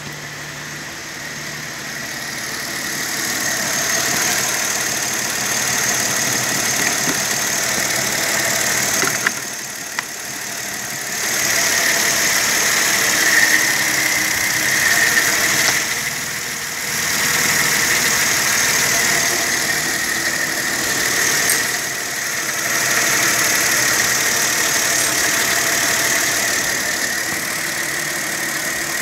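Mercedes-Benz M112 3.2-litre V6 idling steadily with the bonnet open, with a faint high whine over the engine note. It grows louder and quieter several times without stopping.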